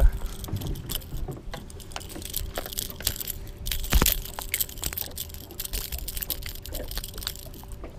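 Close handling of a freshly landed bream and its topwater lure in the boat: scattered clicks, rattles and knocks, with one sharper knock about four seconds in, over a faint steady hum.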